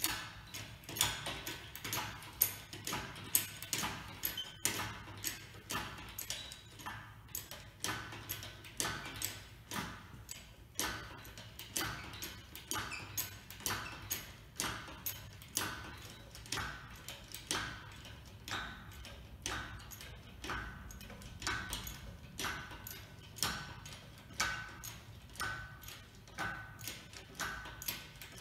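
Engine hoist being worked to lift an engine on its chains: a steady run of sharp metallic clicks, about one to two a second, each with a short ring.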